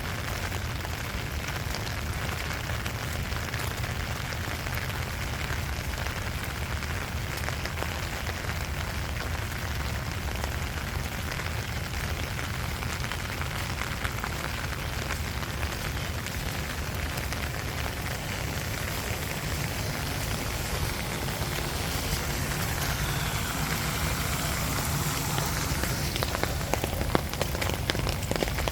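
Steady rain falling on surfaces, a continuous hiss dotted with close drips and patters, growing slightly heavier near the end.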